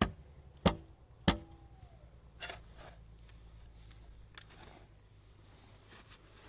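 Three sharp knocks, the second and third about half a second apart, each leaving a brief ringing tone, followed by a few fainter clicks over a steady low hum.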